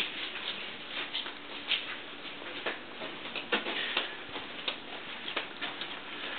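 Light, irregular clicks and taps of someone walking across a hard floor. A faint steady hum underneath drops away about three seconds in.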